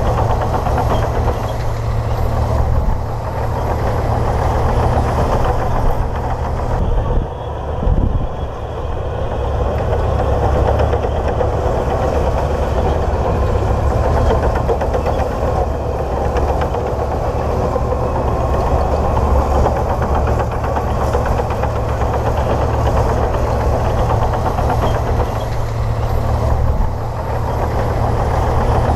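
Komatsu D58P bulldozer's diesel engine running steadily, with a brief dip about seven seconds in.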